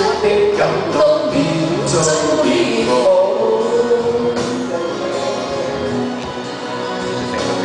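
Singing with instrumental backing, the voice holding long, wavering notes.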